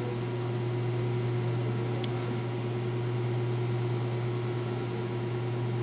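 Steady low hum with a faint hiss: room tone. There is one faint click about two seconds in.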